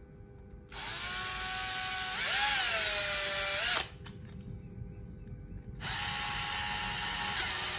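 Bosch GSB 120-LI 12-volt cordless drill motor running twice, spinning its keyless chuck to tighten it on a drill bit. In the first run, about halfway through, the motor pitch drops and it gets louder as the chuck closes and loads up. A second run of about two seconds follows near the end.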